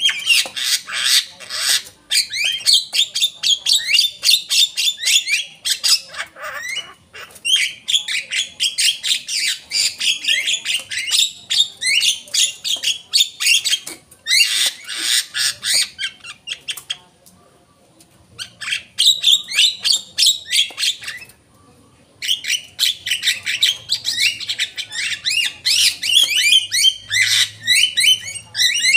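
Javan myna singing a long, fast, chattering song of rapid high notes, broken twice by short pauses in the second half.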